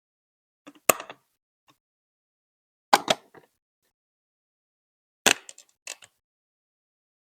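Hard plastic Lego Duplo bricks clacking as they are set and pressed together: three sharp clacks about two seconds apart, each followed by a softer tap or two.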